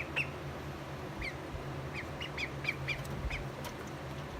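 Welsh Harlequin ducklings peeping: a dozen or so short, high peeps scattered through, over a low steady hum.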